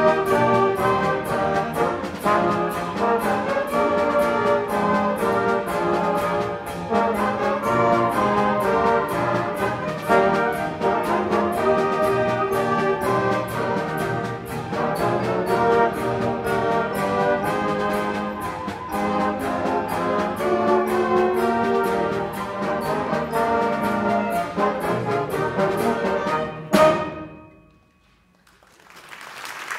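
School concert band of brass, woodwinds and percussion playing a piece over a steady percussion beat. It ends on a loud final accent about 27 seconds in, the sound dies away, and applause begins just at the end.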